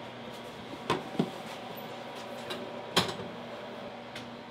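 Clear plastic food container being slid onto the metal rack of a stainless-steel cabinet: a few sharp knocks of plastic against metal, the loudest about three seconds in, over a steady machine hum.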